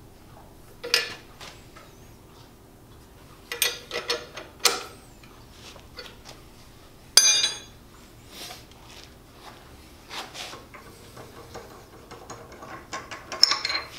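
Metal clanks and clinks from working a steel milling-machine vise and hand tools: sharp knocks scattered through, a quick run of them about four seconds in, a ringing metallic clink about halfway, and another run near the end.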